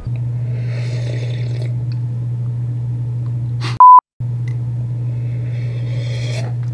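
Steady low electrical hum. About four seconds in it is broken by a short, loud, high single-pitch beep and a moment of dead silence.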